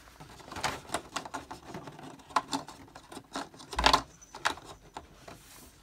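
Small plastic figure accessories clicking and rattling as fingers rummage through a black moulded accessory tray, with a louder knock about four seconds in.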